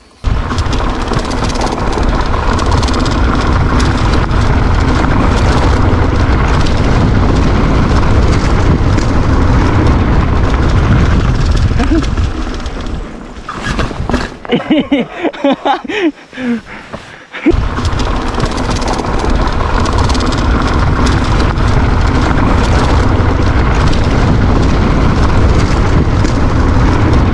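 Heavy wind buffeting on the microphone over tyre rumble as a mountain bike descends a dirt trail at speed. It eases for a few seconds in the middle, where a short wavering high-pitched sound comes through, then returns just as loud.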